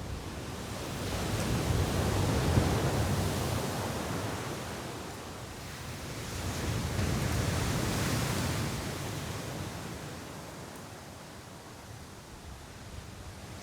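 Sea waves washing onto a beach in strong wind, a rushing noise that swells twice and eases off again.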